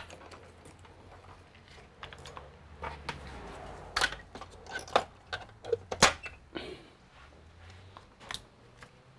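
Light clicks and knocks of tools and a laptop motherboard being handled on a workbench, most of them bunched together in the middle.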